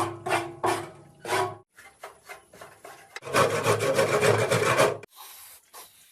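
Rasping, scraping strokes, about three a second, then one longer and louder rasp about three seconds in.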